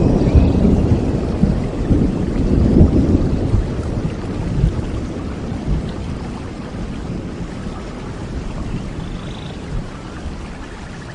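Thunderstorm: a deep rumble of thunder over steady rain, loudest at the start and fading away over several seconds, leaving the rain.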